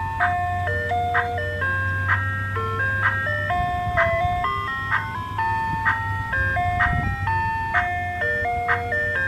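Ice cream truck jingle playing from the van's loudspeaker: a tinny, chime-like electronic melody stepping from note to note with a beat about once a second, over a low steady hum.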